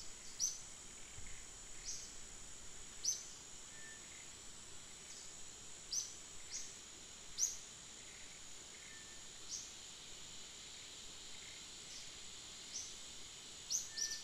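Forest ambience: insects droning steadily at a high pitch, with short high chirps coming every second or two.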